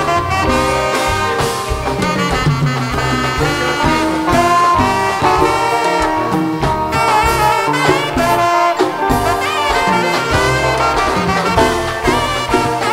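Live dance band playing loud and continuous: a brass section over electric guitar and drum kit.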